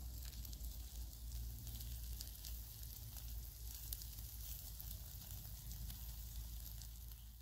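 Whole fish grilling in a wire basket over glowing charcoal, sizzling with scattered small crackles, over a steady low rumble.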